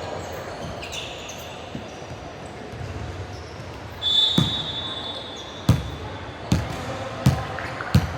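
Basketball being dribbled, five bounces about one every 0.8 seconds in the second half. A high, steady squeal lasting about a second comes just before the first bounce.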